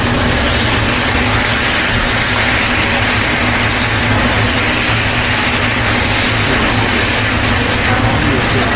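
Chicken pieces sizzling steadily on a hot hibachi griddle as they finish cooking, over a constant low hum.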